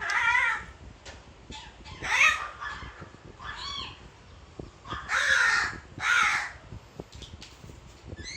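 A crow calling: about five harsh caws of roughly half a second each, spaced a second or two apart, the one in the middle fainter, with a few short clicks between them.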